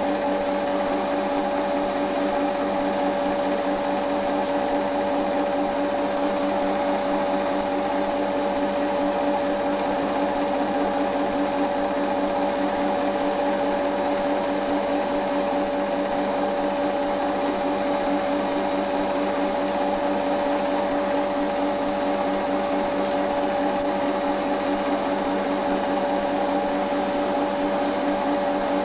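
Cine film projector running: a steady mechanical whir with fixed tones that does not change.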